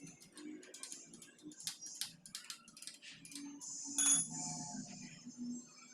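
Metal tools and parts clicking and clinking as they are handled, with a louder knock about four seconds in that rings on briefly.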